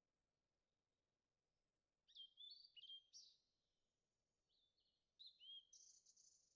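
Faint bird chirps over near silence: two short bursts of quick high notes, about two seconds in and again after five seconds.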